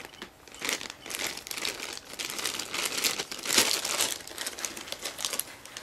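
Clear plastic zip-lock bag crinkling as hands handle it and pick small electronic parts out of it, in irregular rustles that are loudest about three and a half seconds in.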